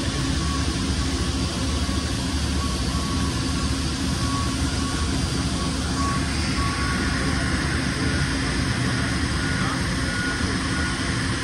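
Steady machine-shop background noise: an even rumble and hum of running machinery, with a faint short tone repeating now and then.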